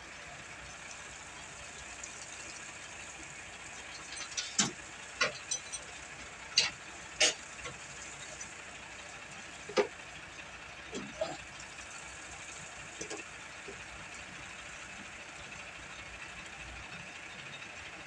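Scattered short, sharp clicks and knocks from hand work on the fittings in an excavator's pump and filter compartment during a filter change. They come in a cluster several seconds in and then a few more later, over a steady background hum.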